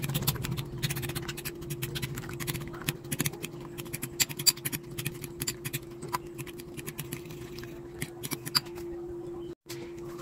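A metal fork clinking and scraping rapidly against a ceramic bowl while beating raw eggs with minced pork, tomato and onion, many quick irregular clicks over a steady hum. The clicking stops shortly before the end.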